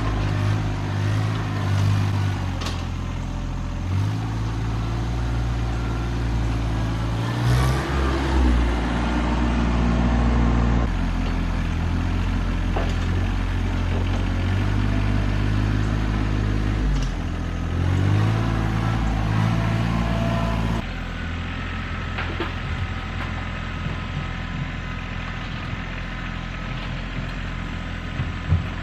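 RK25 sub-compact tractor's diesel engine running, its pitch stepping up and down several times as the throttle changes, with a couple of short revs. A sharp knock comes near the end.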